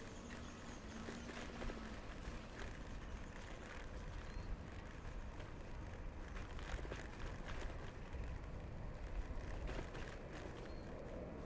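Bicycle riding along: a steady low rumble of wind and tyres with scattered small clicks and rattles from the bike.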